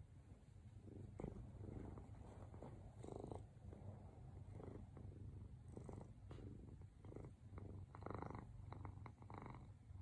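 Domestic cat purring steadily close by, a faint low rumble, with a few soft rustles as it kneads and settles on a shirt.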